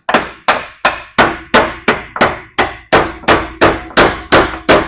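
Hammer blows driving a half-inch bolt into the drilled holes of a truck's steel frame rail. The blows are steady and evenly spaced, about three a second, with a faint metallic ring between them.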